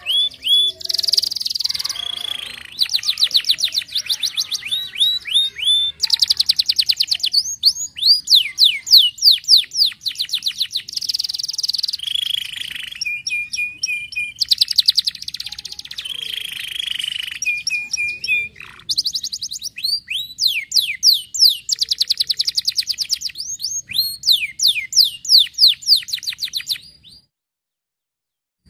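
Domestic canary singing a long, continuous song made of fast trills, runs of rapidly repeated notes, broken twice by a short steady whistled note. The song stops a little before the end.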